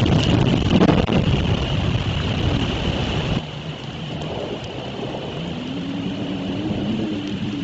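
Strong wind gusting through the trees and buffeting the nest camera's microphone in a severe thunderstorm. About three seconds in, the sound drops suddenly to a quieter wash of wind and rain with a low rumble.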